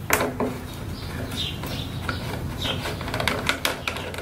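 A 10 mm socket on an L-handle bar loosening the fastener that holds the plastic airbox on a small OHV mower engine: scattered metal clicks and light taps, with a quick run of clicks near the end.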